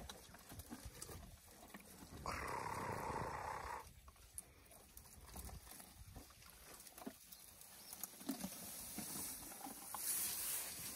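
African elephants feeding, with a short noisy elephant call about two seconds in that lasts about a second and a half, and scattered snaps and rustles of branches being stripped. Near the end a louder rustling hiss as an elephant comes right up to the microphone.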